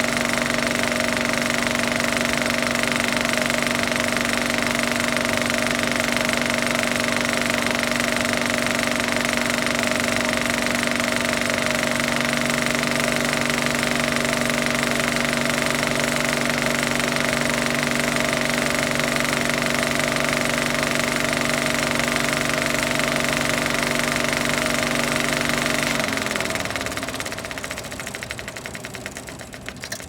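Film projector running steadily, its mechanism holding a constant pitch; about four seconds before the end it is switched off and winds down, the pitch falling and the sound dying away as it slows.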